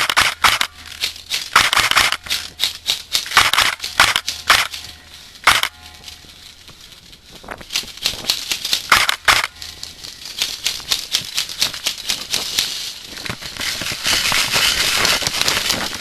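Airsoft gun firing in short bursts of rapid clicking shots, several bursts a few seconds apart, with a denser patter of clicks near the end.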